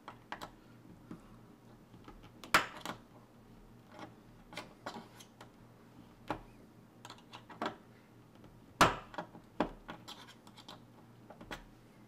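Thin metal tool clicking and scraping against a Defiant deadbolt's lock cylinder in irregular light taps, with two sharper knocks about two and a half seconds in and again near nine seconds.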